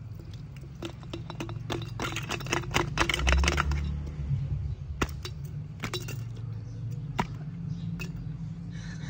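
Plastic ice cube tray twisted and knocked so the ice cubes crack free and drop, clinking against a glass jug and the ice already in it. A quick flurry of clicks and clinks from about two to four seconds in, then a few single clinks, over a steady low hum.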